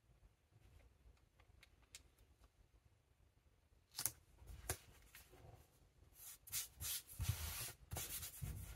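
Paper handling: two sharp paper crackles about four seconds in as a printed paper strip is laid on a notebook page, then hands rubbing the paper flat against the page in a series of dry rustling strokes during the last few seconds.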